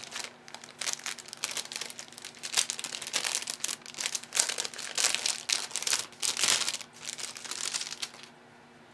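Crinkly wrapping rustled and crumpled by hand in irregular bursts, as an item is unwrapped or handled. It stops abruptly near the end.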